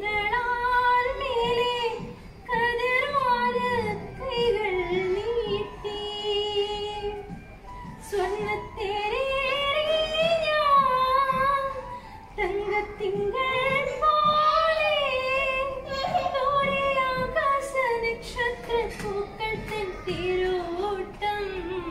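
A woman singing solo and unaccompanied. She sings in phrases with short pauses between them, her voice gliding between notes and wavering on the held ones.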